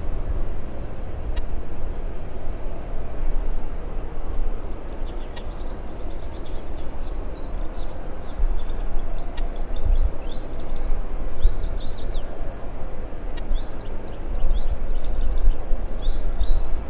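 Airbus A319 jet engines running at taxi power, a steady low rumble. Small birds chirp over it in quick falling calls, coming and going throughout.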